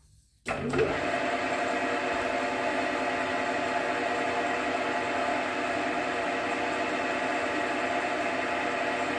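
JFMT metal lathe switched on about half a second in, then running steadily with an even, multi-toned geared hum.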